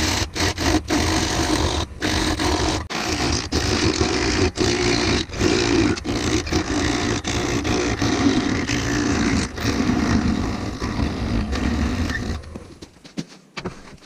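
Turning tool cutting a rough, irregular wood blank spinning on a lathe: a loud, rough cutting noise over the lathe's motor hum, broken by many brief gaps where the cut lets up. About 12 seconds in the cutting stops and the hum dies away as the lathe is switched off.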